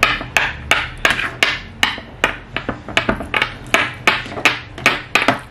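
Sharp, regular tapping: about three hard knocks a second, evenly spaced, each with a short ring.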